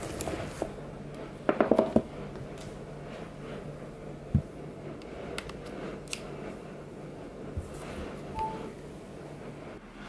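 Hands handling a cable and small device: a quick run of sharp clicks about a second and a half in, a single knock around four seconds, faint ticks, and a short high beep near the end, over a low steady hum.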